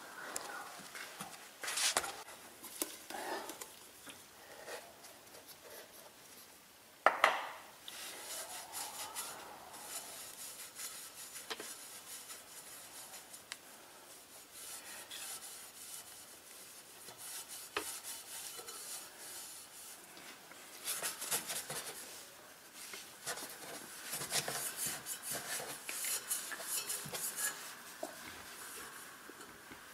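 A cloth rubbing and scrubbing on hard car surfaces: a microfiber towel wiping window glass, then a rag polishing the exhaust tips in quick repeated strokes. One sharp click about seven seconds in.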